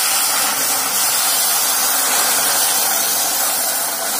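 Water being poured into a hot stainless-steel pressure cooker pot over freshly dry-roasted horse gram, a steady hissing rush as the water meets the heated metal and beans.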